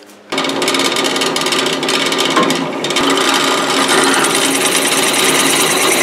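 Drill press running with its bit cutting a hole through metal clamped in a vise: a steady motor tone under dense cutting noise, starting abruptly a moment in.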